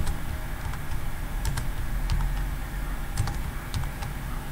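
Computer keyboard keystrokes, about half a dozen separate clicks spread out over a steady low hum: Ctrl+V pastes and Enter presses while lines of code are being pasted.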